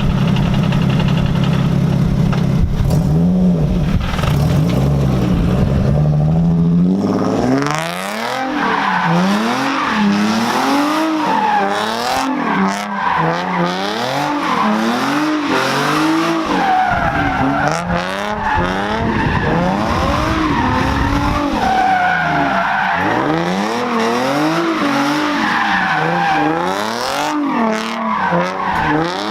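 Nissan 350Z's 3.5-litre V6 running steadily, then from about seven seconds in revving up and down over and over as the rear tyres squeal through donuts and figure eights.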